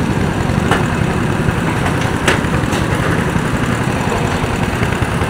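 Small go-kart engine idling steadily, with two sharp clicks in the first few seconds.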